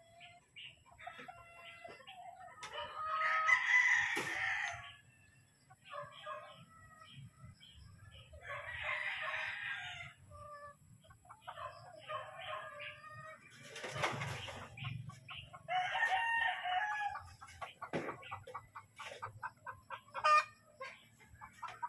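Gamefowl roosters crowing several times, each crow lasting about a second or more, with shorter clucks and calls between the crows.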